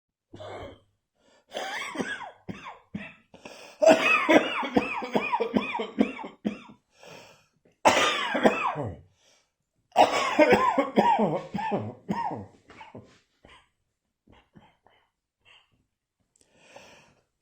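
Repeated fits of coughing: short bouts of quick coughs, the longest run lasting about three seconds, then a few faint single coughs near the end.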